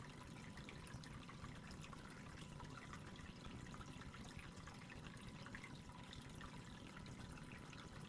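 Faint, steady trickling and dripping of water from an aquarium's internal filter breaking the surface, with many small drips.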